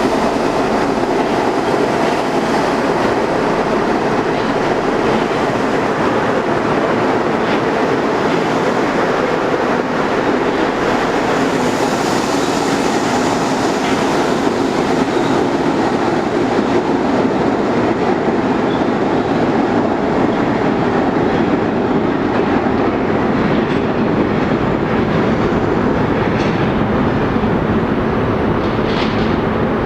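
Budd R32 subway train running on the rails: steady wheel and track noise, with a few sharp clicks over rail joints.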